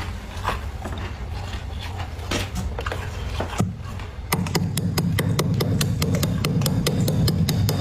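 Thick freezer frost being scraped off, with crunchy scraping strokes. The strokes are irregular at first, then from about halfway a fast, even run of about eight a second, over a steady low hum.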